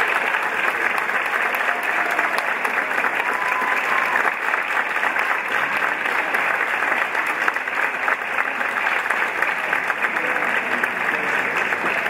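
Theatre audience applauding steadily: many hands clapping in a dense, even patter.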